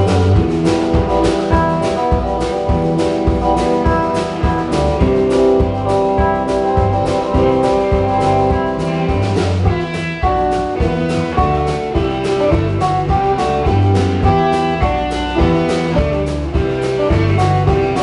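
Live band playing the instrumental intro of a country-rock song: electric guitars over bass and a drum kit keeping a steady beat.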